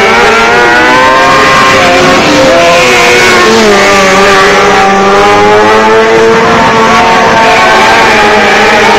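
Several 600cc micro sprint car engines revving loudly as the cars circle, their pitch rising and falling with each pass and turn, several engines overlapping.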